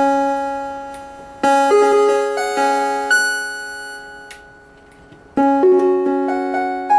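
Yamaha CP11 electronic keyboard playing chords in a piano-like tone. Chords are struck at the start, about a second and a half in, and about five and a half seconds in; each fades away, with single notes added on top shortly after each strike.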